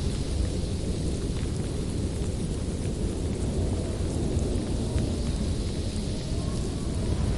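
Winter storm ambience: a steady low rumble with a fainter hiss above it and a few faint ticks, with no distinct thunderclap.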